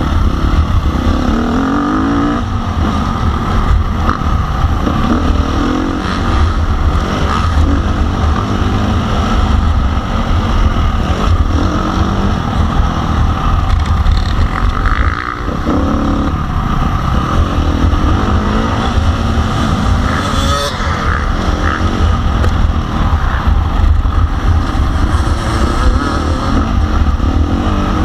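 Motocross bike's engine revving up and down as the throttle opens and closes, with heavy wind rumble on the microphone. The engine drops off briefly about halfway through.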